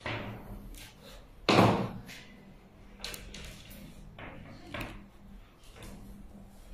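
Handling noise from working a fiber optic cable by hand: one loud knock-like rustle about a second and a half in, then scattered soft clicks and rustles as the bared fibers are wiped with a tissue.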